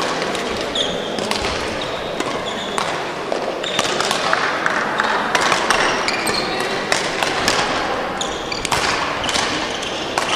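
Badminton rally in a sports hall: many sharp racket strikes on the shuttlecock and short high shoe squeaks on the court floor, over the steady background noise of the hall.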